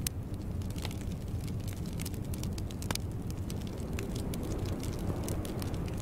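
Wood fire crackling in a fireplace: irregular sharp pops and snaps over a low, steady rumble of the burning logs.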